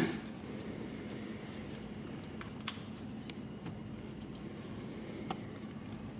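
Sharp clicks and small knocks of metal and glass parts being handled inside a car door while the window glass is set onto the regulator. The loudest click comes right at the start, another about two and a half seconds later and a fainter one near the end, over a steady low hum.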